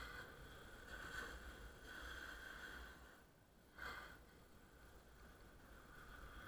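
Faint hiss of a snowboard sliding over snow, swelling and fading in waves, with a short lull past the middle and a sudden swell just after it.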